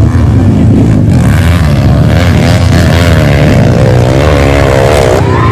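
Motocross dirt bike engine revving hard under load as it climbs a steep hill, its pitch rising and falling in waves.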